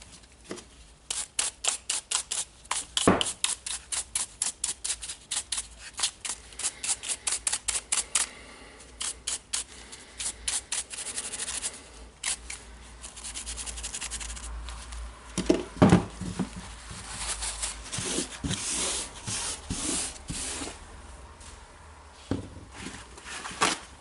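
A quick, even run of sharp clicks, about four a second for several seconds, then scattered clicks and a few heavier knocks near the middle as the parts of a Makita DDF484 cordless drill are worked on by hand.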